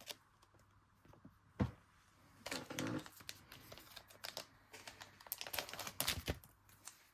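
Black plastic pouch crinkling and clicking as it is handled, with a trading card going in. A sharp click comes about a second and a half in, then crinkling and a run of small clicks.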